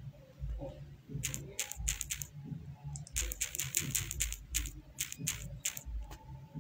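Typing on a keyboard: a short run of key clicks about a second in, then a longer, quicker run from about three seconds to nearly six seconds, over a low steady hum.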